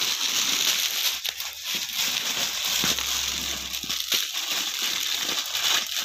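Plastic packaging crinkling and rustling continuously as a wrapped suit packet is handled and shaken open.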